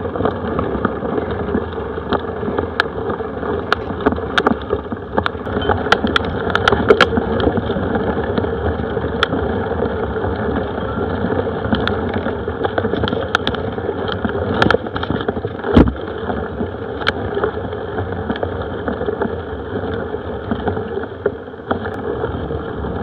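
Mountain bike ridden along a rough dirt and grass trail, picked up by an action camera riding with it: a continuous rumble of tyres and wind with scattered clicks and rattles from the bike, and one heavier knock a little past halfway.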